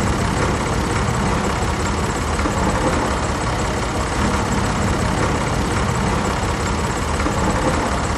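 An engine or motor running steadily, with a fast, even low rhythm like idling.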